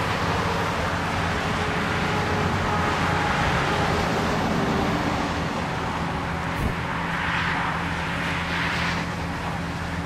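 Asphalt paver's diesel engine running steadily at work, a low even hum under a broad hiss of road and machinery noise. The hiss swells briefly twice near the end.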